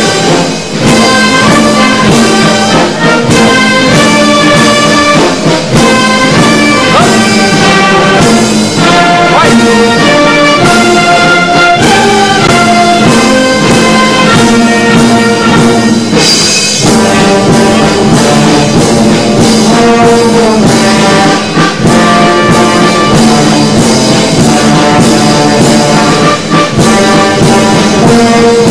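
Brass band playing ceremonial music, with sustained notes shifting in pitch.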